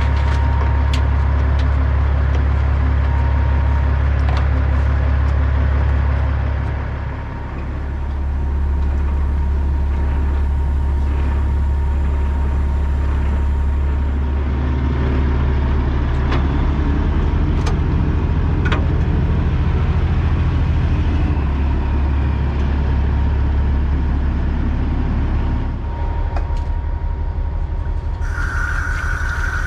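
Heavy semi-truck diesel engine running steadily with cab and road noise, easing off briefly about seven seconds in. A steady high tone comes in near the end.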